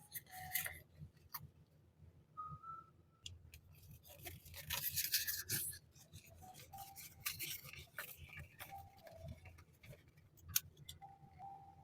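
Packaging being handled during an unboxing: rustling and crinkling, with scattered clicks and taps and a denser burst of rustling about four to six seconds in.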